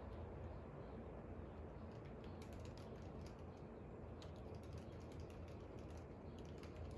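Irregular light clicks of typing on a computer keyboard, heaviest in the second half, over a steady low background hum.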